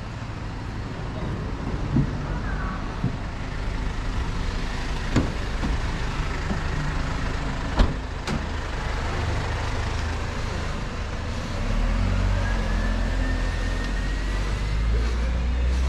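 Street traffic: a motor vehicle's engine rumble grows louder over the last few seconds, with a rising whine, over a steady wash of street noise. A few sharp clicks or knocks come earlier.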